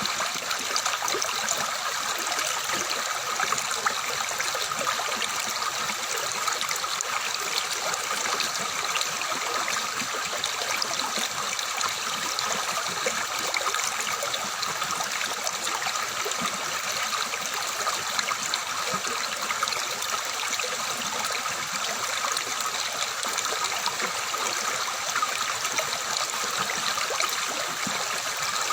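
Water flowing and splashing steadily over rocks, a continuous babbling stream.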